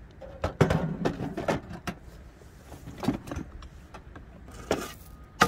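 Camping gear being packed by hand into a storage box: a fabric carry bag rustling as it goes in, with several knocks and clatters of items set down against the box, the loudest about half a second in and near the end.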